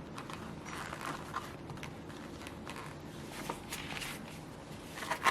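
Quiet handling noises: light, irregular rustling with a few soft clicks as small items are handled.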